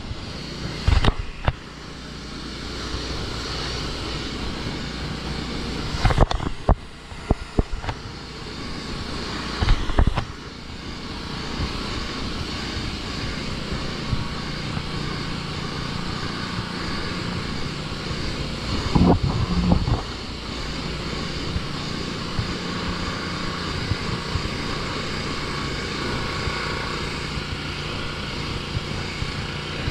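Pressure washer running steadily, its wand spraying water onto wooden deck boards. Several brief louder bursts come in the first ten seconds and again about two-thirds of the way in.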